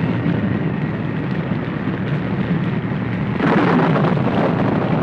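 Sound-effect storm ambience: a steady low rumble of wind and storm noise, broken about three and a half seconds in by a sudden louder blast that carries on as a rushing roar.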